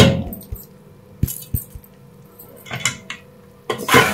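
A spoon clinking and scraping against a pot while stirring vermicelli frying in oil, in several separate, unevenly spaced strokes.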